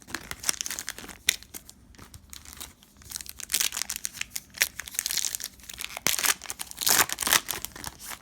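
Trading card pack wrapper being torn open and crumpled by hand: irregular crinkling and tearing, busiest in the middle and again near the end.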